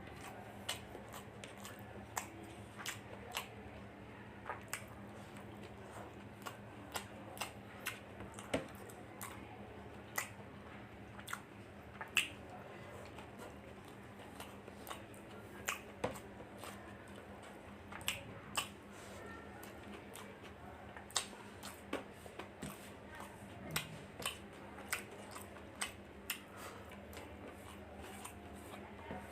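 Close-miked chewing of chicken fried rice: irregular short wet clicks and smacks from the mouth, about one or two a second, over a faint steady hum.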